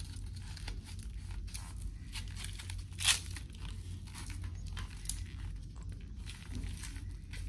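Hook-and-loop strap on a child's ankle-foot orthosis (AFO) brace being pulled and fastened: short ripping and rustling sounds, the loudest a sharp rip about three seconds in.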